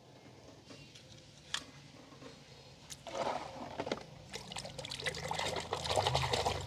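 Water splashing and pouring, beginning about three seconds in and growing louder, after a single sharp click about a second and a half in.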